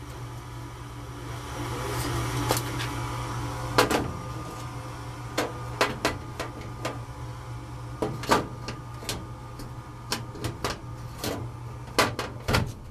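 Scattered metal knocks, clicks and a scrape as a furnace filter is worked into its slot and the furnace's metal panel is handled, over a steady low hum.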